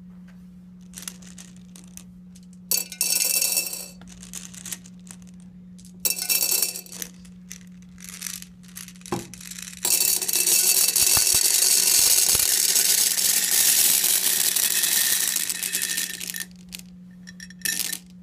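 Gumballs poured from a glass jar into a tall glass vase, clattering against the glass: two short rattling spills in the first seven seconds, then a continuous cascade for about six seconds, and a few last clicks near the end. A steady low hum runs underneath.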